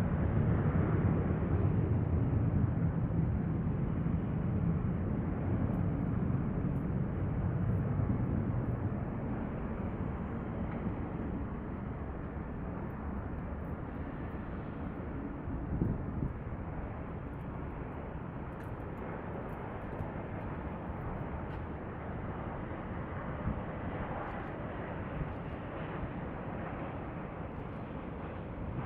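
Distant jet airliner's engine rumble, loudest at the start and fading away over about ten seconds, leaving a steady low background rumble.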